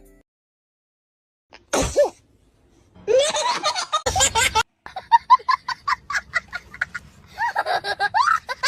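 A single sudden sneeze about two seconds in, then loud laughter in repeated pulses that carries on to the end.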